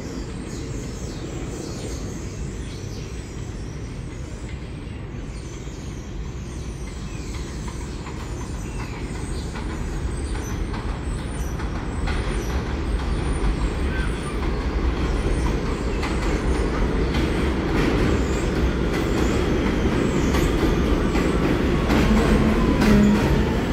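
R46 subway train approaching and entering an elevated station: a rumble of wheels on rails grows steadily louder, with clicking over the rail joints in the second half. Near the end a whine falls in pitch as the train slows.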